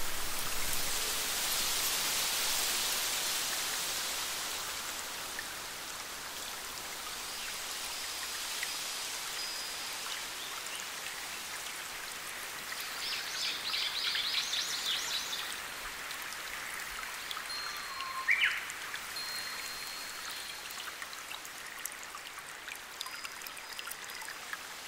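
Small forest stream and cascade splashing and trickling steadily, a little louder in the first few seconds. Birds call over it: thin, high held notes several times, and a rapid trill about halfway through.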